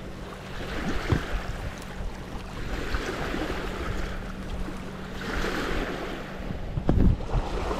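Small lake waves washing onto a rocky shore in soft surges every couple of seconds, with wind rumbling on the microphone.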